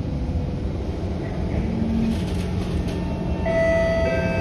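Steady rumble of an SMRT C151 metro train running on the track, heard from inside the car. Near the end, several steady pitched tones come in over it.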